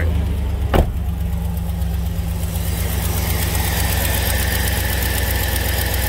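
A 6.0-litre V8 in an '06 Chevy 2500 pickup idling just after starting, its speed dropping from the start-up flare at the very beginning, with one sharp knock about a second in. The engine has an exhaust leak at the manifold from broken manifold bolts, which makes a puffing sound that is often taken for a valvetrain tick.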